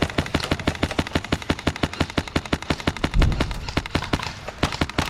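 HPA-powered airsoft MP5 with a Polarstar Kythera engine firing a long string of rapid shots, about ten sharp clicks a second; it is quiet for an airsoft gun. A low thump comes about three seconds in.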